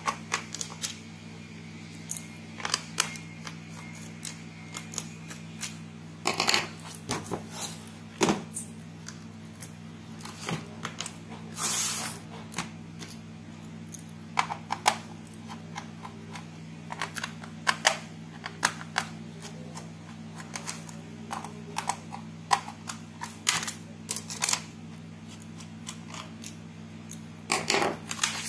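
Small screws being unscrewed from a laptop's keyboard and lifted out, with scattered clicks and taps of the screwdriver and plastic casing, over a steady low hum.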